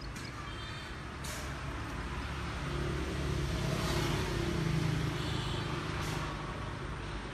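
A vehicle engine running, its low rumble swelling to its loudest around the middle and then easing off, with a couple of short clicks.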